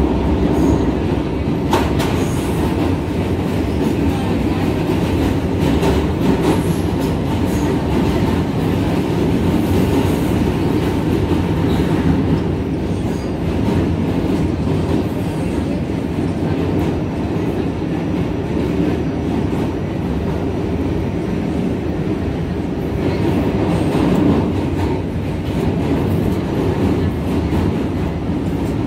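New York City subway B train running at speed across a steel truss bridge, heard from inside the car. Wheels run steadily on the rails, with a few sharp clicks from the track.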